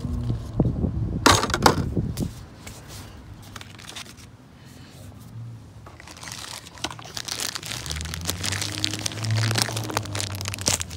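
Crinkling and clicking handling noise, with a dense run of sharp cracks in the first two seconds and scattered clicks again from about six seconds in. A low hum joins about eight seconds in.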